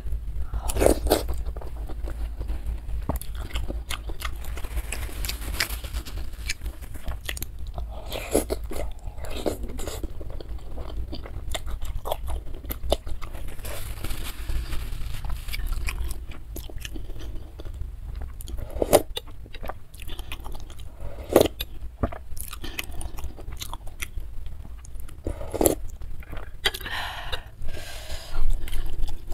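Close-miked chewing of a mouthful of instant noodles and egg, with irregular mouth clicks, over a steady low hum.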